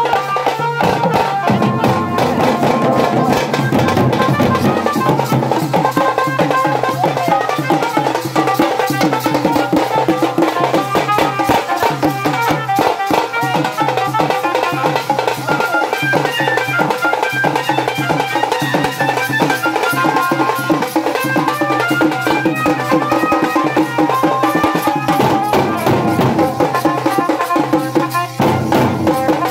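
Village wedding band (bajna) playing: dhol barrel drums and a tasa drum beaten in a fast, dense rhythm with small hand cymbals, over a sustained melody from horn loudspeakers.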